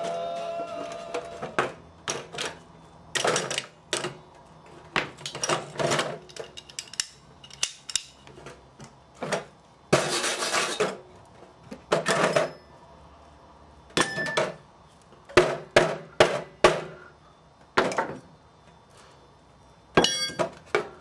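Metal tools being handled and dropped in a metal tin box: a series of irregular clanks and clinks, some in quick clusters. Acoustic guitar music fades out during the first second.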